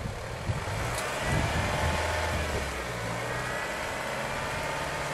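Off-road truck's engine revving under load as it pushes through swamp mud with only its front axle driving. The revs climb about a second in, dip, then hold steadier.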